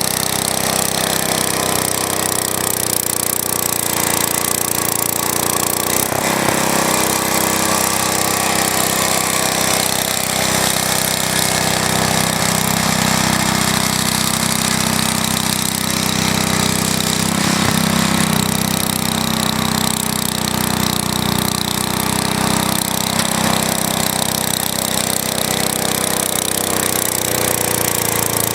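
Small engine of a vintage Wheel Horse garden tractor running steadily, with a rattly, hammering note.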